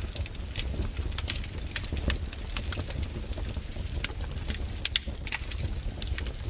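Wood fire burning in a fireplace, the logs crackling with irregular sharp pops over a low steady rumble.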